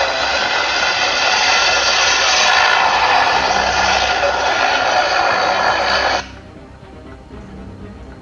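Helicopter turbine engine and rotor noise, a loud steady roar that cuts off abruptly about six seconds in.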